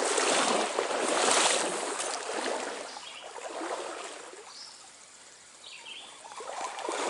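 Stream water rushing and splashing, loudest for the first couple of seconds, dying away in the middle and building again near the end. A few faint bird chirps come through in the quieter middle stretch.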